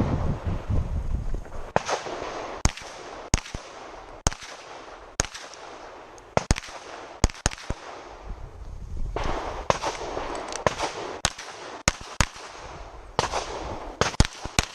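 Glock 22 pistol, chambered in .40 S&W, firing a course of fire: about twenty single shots, mostly under a second apart, in strings with short pauses between them.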